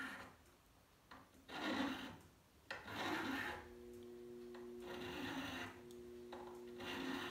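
A flat file rasping across the end of a sterling silver tube in a few slow strokes, squaring the end flat and flush. A faint steady hum comes in about halfway through.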